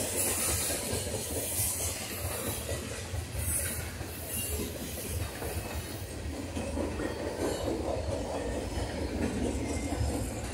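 Freight train cars rolling past on the rails: a steady, unbroken rumble of wheels on track.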